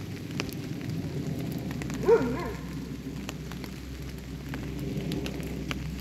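Steady rain with scattered sharp drop ticks. About two seconds in, a short cry that rises and falls in pitch stands out as the loudest sound.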